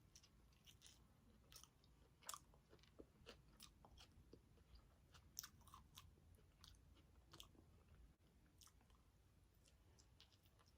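Faint close-up chewing: soft, irregular mouth clicks and smacks of someone eating, one or two a second.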